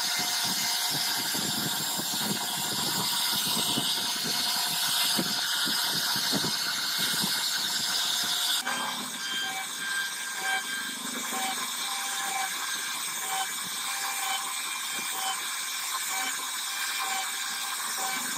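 CNC router spindle running at speed while its carving bit routs a relief pattern into a wooden door panel: a steady high whine over cutting noise. The sound changes abruptly about eight and a half seconds in, where a different carving pass begins.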